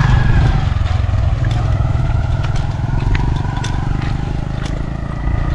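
Motorbike engine running steadily, a low drone that fades slightly toward the end, with scattered faint clicks.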